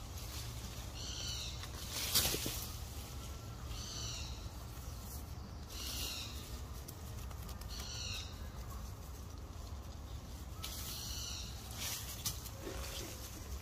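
A short, high-pitched call repeats about every two seconds, five times, over a steady low rumble, with one sharp click about two seconds in.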